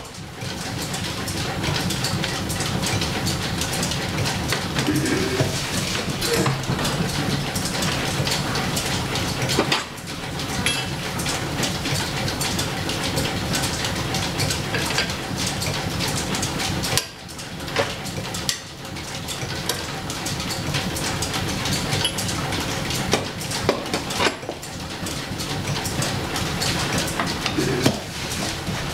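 Overhead line shaft and flat leather belt drive running, a steady dense clatter of small clicks that briefly drops away a few times, with metal clinks from a key tightening the jaws of a four-jaw lathe chuck.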